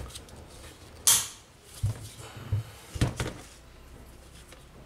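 Hex key working the axle bolt of a Micro MT Plus inline skate's wheel: a short scraping rasp about a second in, then a few small knocks and clicks of metal and plastic as the skate and wheel are handled.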